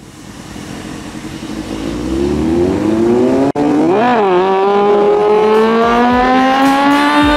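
Yamaha R1's inline-four engine with a Yoshimura exhaust, under hard acceleration and growing steadily louder as the bike approaches on its back wheel. The revs climb, drop sharply with an upshift about four seconds in, then climb again more slowly.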